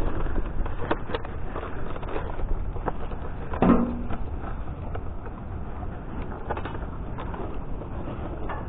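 Boxes and packaging being rummaged through inside a recycling bin: scattered rustles and knocks, with one louder knock a little under four seconds in, over a steady low rumble.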